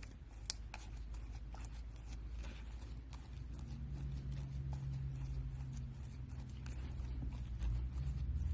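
Scattered light taps and clicks of objects being handled, over a low rumble that grows louder from about halfway through.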